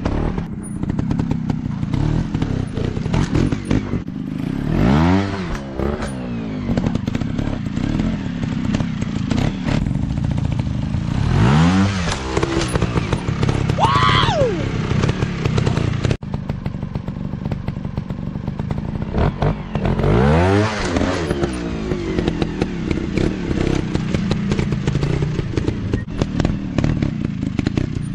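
Trail motorcycle engine running, revved up sharply three times, with the pitch rising each time about seven to eight seconds apart.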